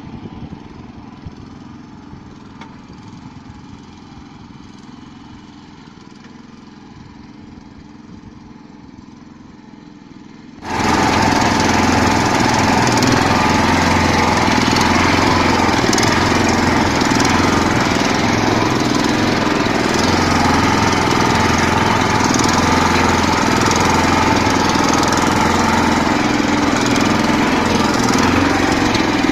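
A walk-behind tractor's engine running steadily as the machine drives through water and mud. It is heard from a distance at first, then suddenly much louder and close up from about ten seconds in, picked up right on the machine.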